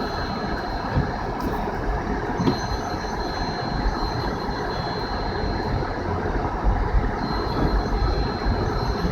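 A car driving on a snowy road: steady rumbling road and tyre noise with a thin high whine that comes and goes.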